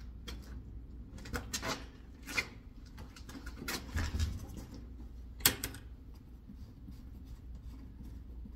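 A 5-gallon plastic bucket of engine oil being handled: a scatter of knocks and clicks as it is lifted, a dull thump about four seconds in as it is set down on the tire, and one sharp click about a second and a half later.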